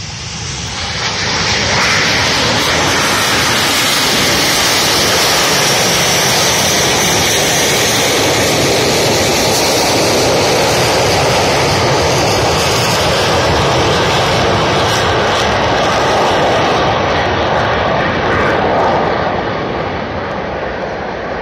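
Turbojet engines of the Frecce Tricolori's Aermacchi MB-339 jet trainers taking off and passing in formation: a loud, continuous jet roar that swells over the first couple of seconds, holds steady, then eases off near the end.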